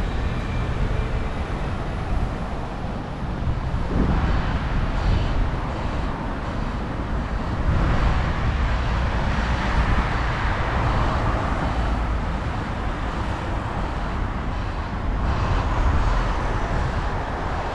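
Steady road traffic noise, a constant wash of passing vehicles that swells louder a few times as nearer vehicles go by.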